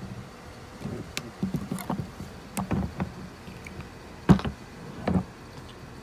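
Handling noise from the camera being picked up and set in place: a run of irregular knocks and rubbing against the microphone, the loudest knock a little past four seconds in.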